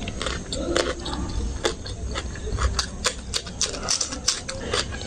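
Close-miked chewing and mouth smacking of a person eating rice and curry by hand: irregular wet clicks and smacks, several a second.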